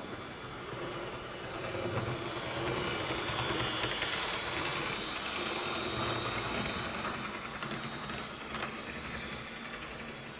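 Model railway multiple-unit train running past on the track: the whirr of its small electric motor with wheel noise on the rails, growing louder to a peak in the middle and fading as it moves away.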